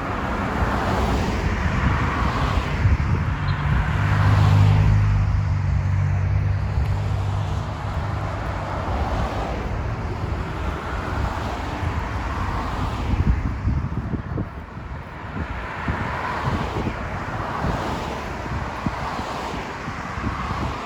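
A motor vehicle's engine running close by with a steady low hum, loudest about four to five seconds in, then fading into general traffic noise. Wind rushes on the microphone throughout.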